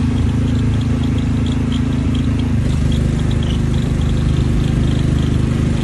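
Engine of a small drivable ride car running steadily, its pitch shifting slightly about two and a half seconds in.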